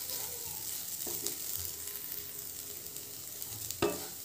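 Wooden spatula stirring and scraping a dry moong dal filling in a nonstick kadhai while it fries with a steady soft sizzle, the chilli and turmeric powder being roasted into it. A brief louder sound comes near the end.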